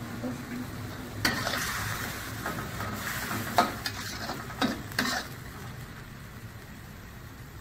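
Metal spatula stirring sliced onion and spice paste in hot olive oil in a wok, scraping over a light sizzle with a handful of sharp clinks against the pan between about one and five seconds in.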